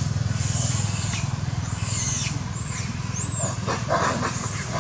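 Macaque screaming in short, high, rising-and-falling squeals, four or five in quick succession, over a steady low rumble, with a few soft thuds near the end.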